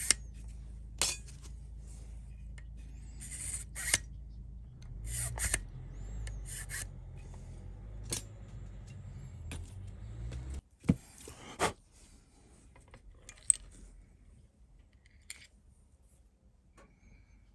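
Thin steel blade scraping a white guitar nut blank held in a vise, in short strokes every second or two through the first half, over a low steady hum that cuts off suddenly about ten and a half seconds in. After that come a few sharp clicks and knocks.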